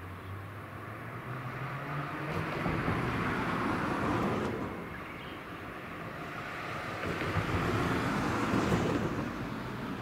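Two road vehicles passing by one after the other, each swelling and fading over a few seconds.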